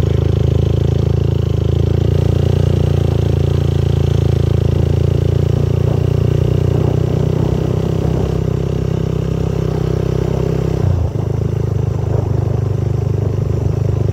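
Motorcycle engine running steadily while riding along a road, its note changing about eleven seconds in.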